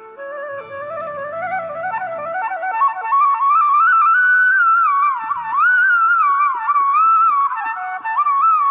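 Instrumental music: a solo flute-like melody with sliding, ornamented notes climbing over the first few seconds, over a held drone.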